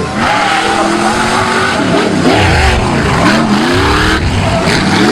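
Off-road competition 4x4's engine revving hard, its pitch rising and falling several times as the throttle is worked.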